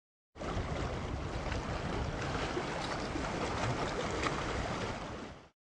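Water splashing and washing against shoreline rocks: a steady, rough wash with small splashes in it. It starts shortly after the beginning and fades out just before the end.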